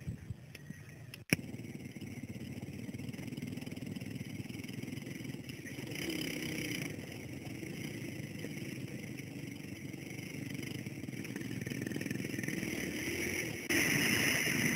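Dirt bike engine running steadily while riding, heard from a helmet-mounted camera after a quiet first second, getting louder near the end.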